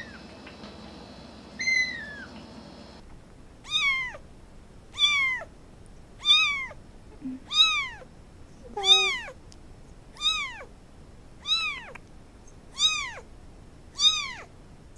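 A kitten gives one thin, high mew that falls in pitch, then another young kitten meows over and over, about ten mews a little over a second apart, each rising then falling in pitch.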